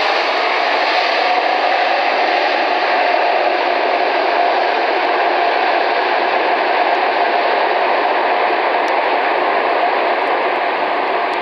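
Steady, loud rushing noise of an Airbus A380's jet engines and the water spray thrown up as it rolls out after landing on a waterlogged runway.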